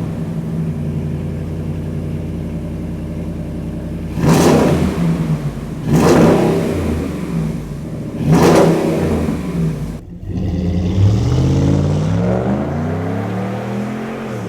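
2015 Ram 1500's 5.7-litre Hemi V8 running through a new MBRP stainless steel dual cat-back exhaust: it idles steadily and is revved three times. Near the end it accelerates, its pitch rising.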